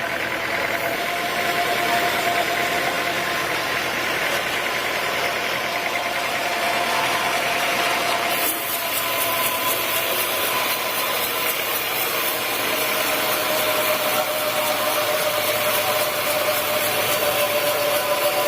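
Sawmill saw machinery running steadily: a constant mechanical hum with a held whine. About eight seconds in, a high hiss joins it.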